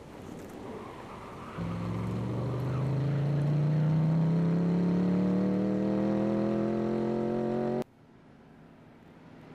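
Outdoor rumble and wind noise, then about a second and a half in an engine-like drone starts suddenly. Its pitch climbs slowly and steadily for about six seconds before it cuts off abruptly.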